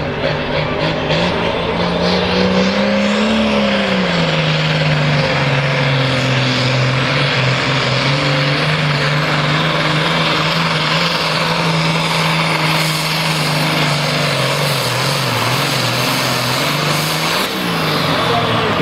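Turbocharged diesel engine of a Pro Farm class Ford pulling tractor running at full power while dragging a weight-transfer sled. Its pitch rises about three seconds in, then holds steady, sags near the end and flares up briefly just before the end.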